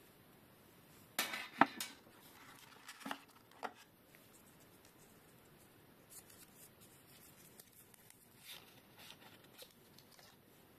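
Packaging and small parts being handled: a quick cluster of sharp plastic clicks and rustling about a second in, two more clicks near three seconds, then faint light handling sounds.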